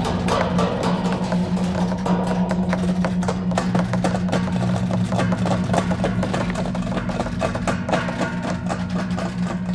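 Experimental electronic music: a steady low hum with fast, irregular clicking percussion over it.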